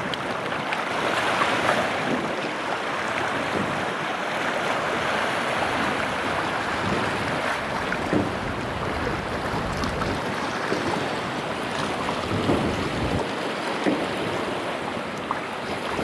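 Small sea waves washing steadily against a broken concrete seawall and stone rubble at the water's edge, with wind buffeting the microphone.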